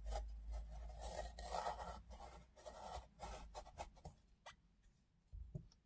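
Kitchen knife slicing into a block of raw Korean radish (mu), scoring it only halfway through: crisp rasping cutting noise over the first three to four seconds, then a few light clicks as the blade is worked.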